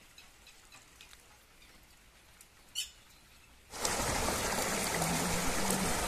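Quiet outdoor ambience with faint bird chirps and one louder bird call near the middle. About four seconds in, the loud, steady rush of water pouring over rocks cuts in abruptly.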